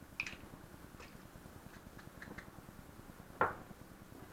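Metal garlic press working garlic cloves into a small ceramic bowl: a few small clicks, then a louder knock of the press against the bowl about three and a half seconds in.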